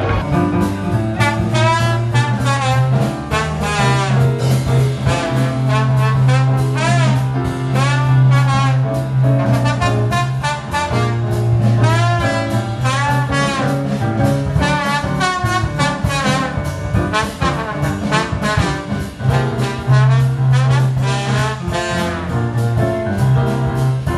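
Live traditional jazz band playing: a trombone carries the melody over piano and drums, with a steady beat and a walking low line.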